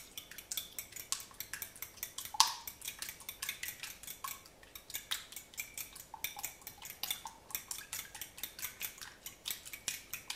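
A metal fork beating eggs in a glass bowl, clinking quickly against the glass at about four or five strokes a second, with one louder clink about two seconds in.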